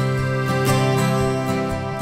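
Soft background song music, an acoustic guitar playing in a short instrumental gap between sung lines.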